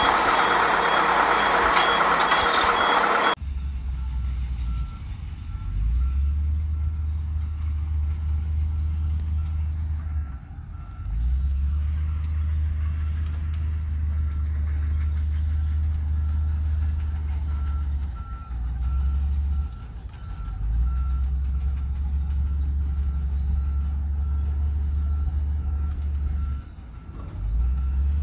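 Heavy diesel engine rumble from a dump truck and a crawler dozer at work, with a reversing alarm beeping in a steady repeating pattern. About three seconds in, a louder, brighter noise with a higher beep stops abruptly. After that the low rumble carries on, dropping out briefly a few times, with the backup beeps faint beneath it.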